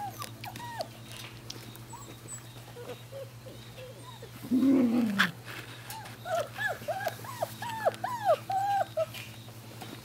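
Australian labradoodle puppies whimpering and yipping in short, high, arched calls, a few at first and then a quick string of about ten in the second half. A single louder, lower call comes about halfway through.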